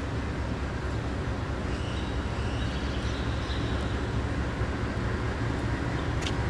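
Freight train of hopper cars rolling by, a steady low rumble with faint high wheel squeals and a couple of sharp clicks near the end.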